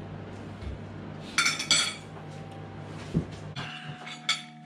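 Metal spoon and fork clinking against ceramic plates as leaf-wrapped cassava suman are served: a quick cluster of clinks a little over a second in and two more near the end. A low steady hum underneath stops about three and a half seconds in.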